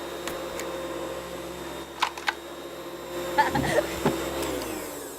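Cartoon sound effect of a whirring electric motor hum, with a few clicks and clatters, winding down in pitch and fading near the end.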